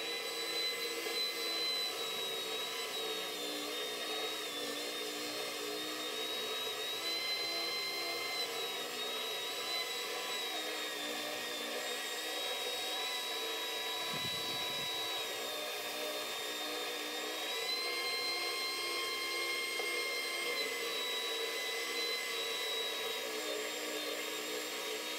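WEN oscillating spindle sander spinning up, then running steadily with a motor whine as a maple guitar body is sanded against its coarse 60-grit drum. The whine shifts slightly in pitch a few times as the wood is worked against the drum.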